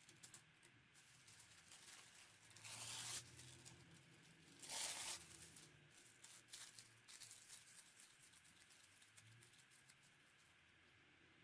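Paper torn twice, about three and five seconds in, with soft crinkling and rustling of thin craft paper strips being handled.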